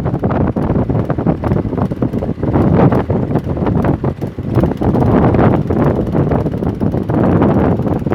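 Wind buffeting the microphone aboard a moving fishing boat, with the boat's engine running underneath in a steady low rumble.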